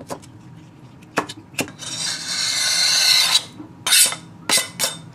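A kitchen knife chopping tomato on a plastic cutting board, three strokes, then a long scrape of about a second and a half as diced tomato is gathered across the board. Near the end come a few sharp knocks as the board is tipped over a ceramic bowl and the pieces slide in.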